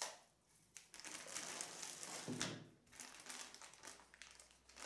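Clear plastic bag crinkling faintly as hands open and handle it, in two spells of rustling with a short pause about halfway.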